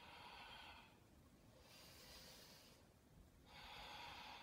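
Three faint, slow breaths, each a soft rush of air lasting about a second: deliberate deep yoga breathing.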